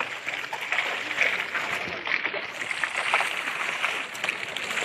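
Seawater splashing and sloshing around a bamboo fishing raft as a net is hauled in from the water, a steady rush broken by many small splashes.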